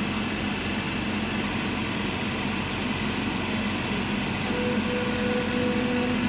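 Water-cooled laser cutter running: the steady noise and hum of its cooling and fans while it cuts acrylic. A high thin whine stops about four and a half seconds in, and a lower steady tone starts at the same time.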